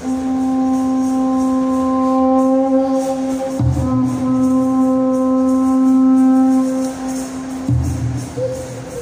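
Live band music on stage: one long note held at a steady pitch, broken once about three and a half seconds in, with deep drum hits at that moment and again near the end.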